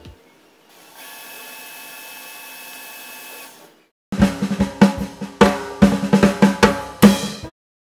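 Transition music: a quiet sustained chord fades out, then a loud drum fill of rapid snare and bass drum hits runs for about three seconds and stops abruptly.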